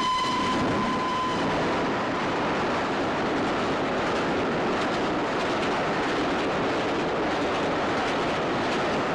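Express steam train rushing through the station without stopping: its whistle holds one steady note that breaks off about a second and a half in, then the loud, even rush and rattle of the train passing close by.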